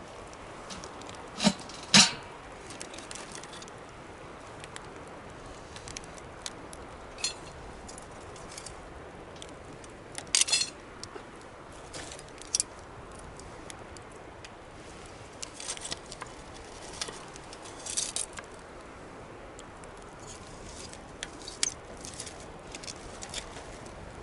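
Wood bonfire burning with a steady low hiss, crackling and popping irregularly, with the loudest sharp pops about one and a half and two seconds in and a cluster of crackles about ten seconds in.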